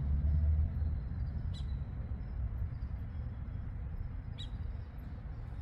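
Spirit box sweeping through radio stations: a steady low, muffled static with two faint clicks.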